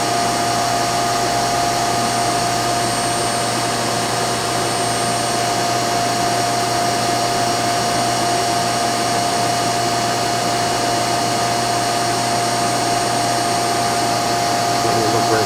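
Weeke Optimat BHC Venture 2.5 CNC machining center running, a steady whirring noise with a constant high whine and a low hum.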